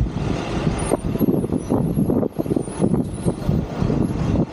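Open-sided safari bus running, a loud, uneven low rumble that rises and falls.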